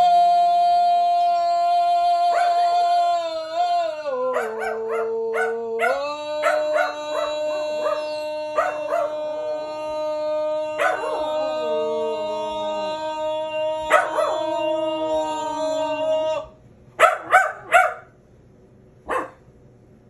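Dogs howling together in long held, sliding notes, with short yips mixed in. The howling stops about 16 seconds in and a few short yips follow.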